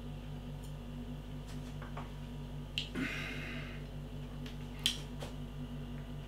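Quiet sounds of a man drinking and tasting beer: a few small clicks and a short breathy exhale about three seconds in, over a steady low hum.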